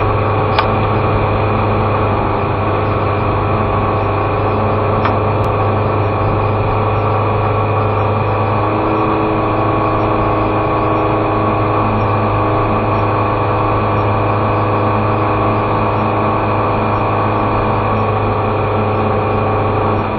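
Car engine and tyre noise heard inside the cabin while driving at a steady pace: an even drone with a strong low hum and little change in pitch.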